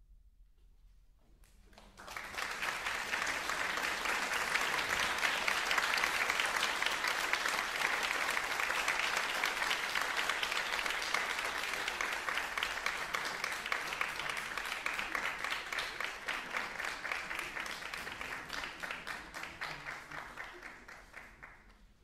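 Concert hall audience applauding: about two seconds of near silence, then applause starts suddenly and runs steadily before thinning out into separate claps and fading near the end.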